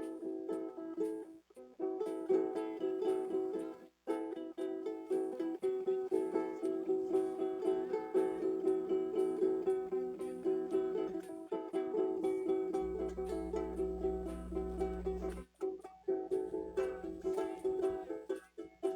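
Acoustic string instrument strummed quickly and steadily, with no singing and two short breaks in the first few seconds.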